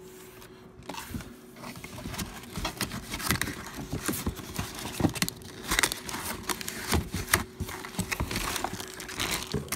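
Cardboard box flaps and plastic-bagged parts rustling and crinkling as hands rummage through the box, with irregular small knocks and clicks. A faint steady hum runs underneath.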